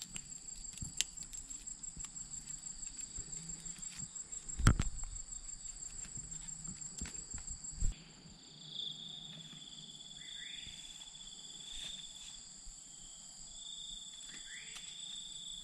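Insects trilling steadily at a high pitch, with small ticks and rustles of a bamboo strip being wound and tied. There are two sharp knocks, about four and a half and eight seconds in. After that, a lower-pitched insect drone carries on with a few short rising chirps.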